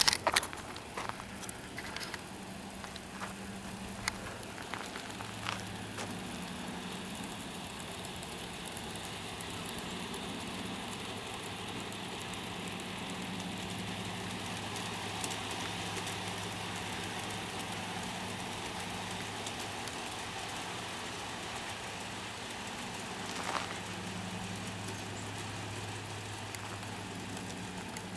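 Steady low mechanical hum with a faint hiss, a few light clicks in the first seconds and one short knock about 23 seconds in.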